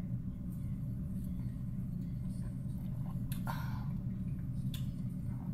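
Steady low room hum, with a few faint clicks and a short breathy sound about three and a half seconds in.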